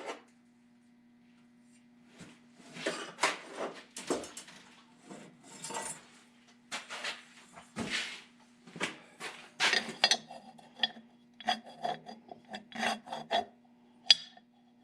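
Metal scraping and rasping on metal in irregular strokes, turning into quicker short strokes about ten seconds in, over a faint steady hum.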